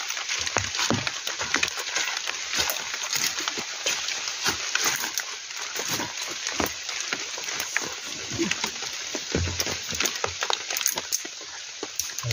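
Heavy rain falling, a steady hiss with many irregular drops striking close by.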